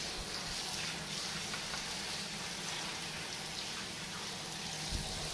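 Handheld shower head spraying water onto a hedgehog and the bathtub floor: a steady hiss of running water.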